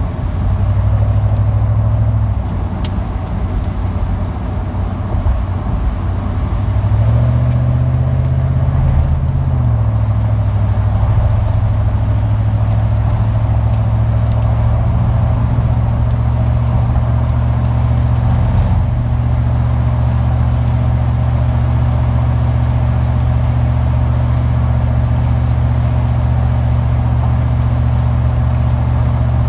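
A car's engine and road noise, a steady low hum whose pitch rises about seven seconds in and settles again about ten seconds in, as the car speeds up.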